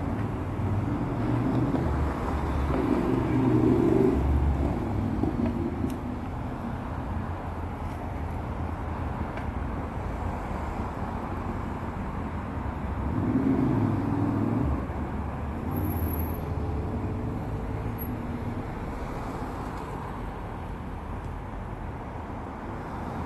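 Street traffic at an intersection: a steady hum of cars, with vehicles passing louder twice, a few seconds in and again about halfway through.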